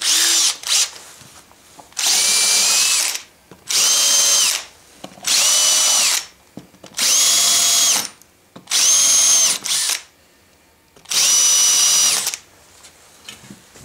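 Power drill with a 5/32-inch bit opening up the screw holes in a plywood disc, run in six short bursts of about a second each with short pauses between, its motor whine steady during each run.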